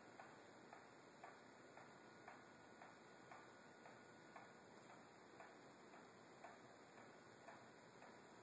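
Pendulum wall clock ticking faintly and steadily, about two ticks a second.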